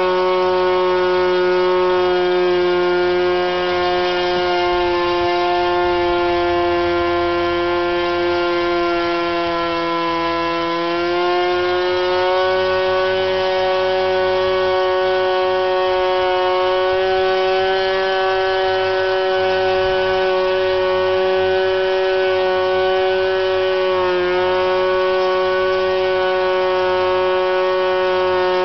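Norvel .074 glow engine with its cooling fins mostly removed, running flat out on a Cox 8x4 propeller: a steady, high-pitched buzz. Its pitch slowly sags over the first ten seconds, climbs back about eleven seconds in, and dips briefly near the end. The owner suspects that the sagging comes from the worn cylinder losing compression as it heats.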